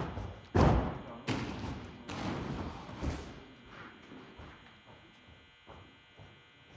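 Hands and feet thudding on a carpeted gym floor during a tumbling pass: about five heavy thuds over the first three seconds, the loudest about half a second in, then a few faint knocks.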